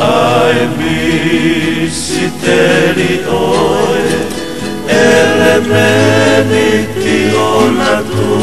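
Music: a Tongan kava-club song, voices singing together with a wavering vibrato over steady instrumental backing.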